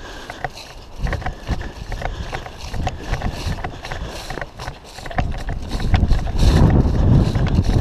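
Hurried footsteps on grass with the clicking and knocking of gear and an airsoft rifle, mixed with wind rumbling on a head-mounted action camera's microphone that grows much stronger in the last two seconds.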